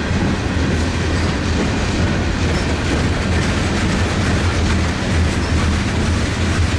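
Freight train's tank cars and hopper cars rolling past close by: a steady rumble of steel wheels on rail, with faint clicks as the wheels cross rail joints.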